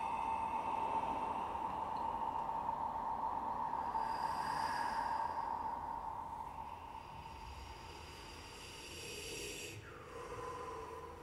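Sparse live electroacoustic music: a steady high tone held over a light hiss for about six seconds, then fading to fainter, thinner tones, with a lower tone and a short falling glide near the end.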